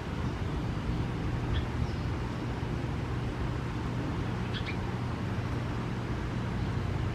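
Outdoor background: a steady low rumble, with a few faint, short, high chirps about a second and a half in, at two seconds and at four and a half seconds.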